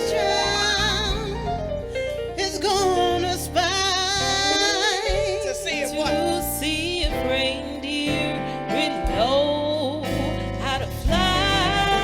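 Gospel-style singing with strong vibrato and vocal runs over instrumental backing: live music.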